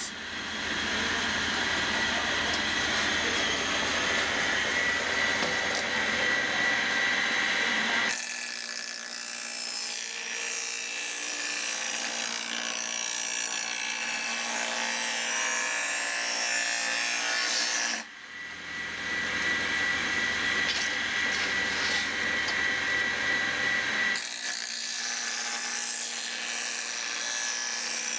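Barshop bench bar grinder's abrasive wheel grinding the steel rails of a Stihl chainsaw bar, a steady grind with a thin high whine. It shifts abruptly a few times between a fuller, lower sound and a thinner, higher one. The rails are being ground flat to remove rolled-over edges.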